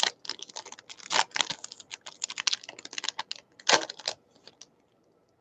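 A baseball card pack's wrapper crinkling and tearing as it is opened: a quick, irregular run of crisp crackles that stops a little over four seconds in.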